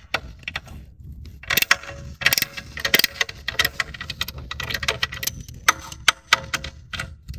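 Hand ratchet with a hex-bit socket clicking in short, irregular runs as it is swung back and forth, loosening the hex bolts of a motorcycle engine guard plate.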